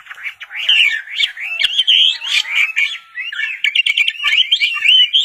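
A songbird singing a fast, continuous warbling song of rapidly rising and falling whistled notes, with a brief pause about three seconds in.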